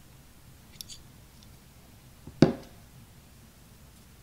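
Handling noise from a Makarov pistol frame being stripped by hand: a few faint metal clicks about a second in, then a single sharp knock a little past halfway, as a small pin comes out of the frame into the hand.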